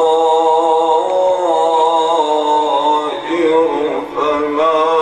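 A man reciting the Quran in a slow, melodic chanting style, drawing out long ornamented notes with a wavering pitch, and pausing briefly about three and four seconds in.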